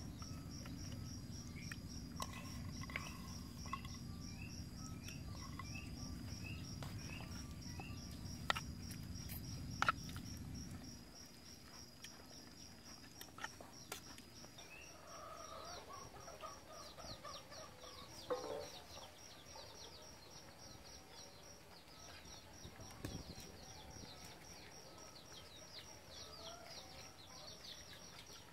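Faint outdoor ambience: birds chirping and a steady high insect whine, with a few sharp clicks of a metal spoon against a ceramic bowl. A low hum underneath stops abruptly about eleven seconds in.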